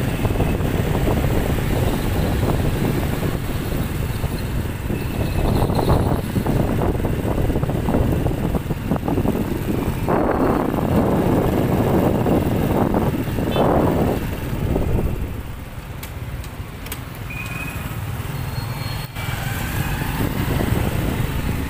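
Riding motorbike's engine and wind rumbling on the microphone in road traffic, with other motorbikes passing. A couple of louder passing swells come near the middle, and the rumble eases about fifteen seconds in as the ride slows.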